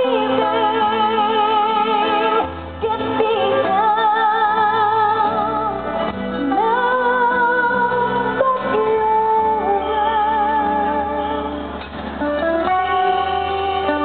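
A woman singing live into a microphone with a band accompanying her, holding long notes with a wide vibrato and pausing briefly between phrases.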